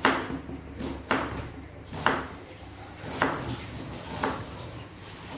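Kitchen knife chopping a red onion into small dice on a plastic cutting board, with about five sharp knife strikes spaced roughly a second apart.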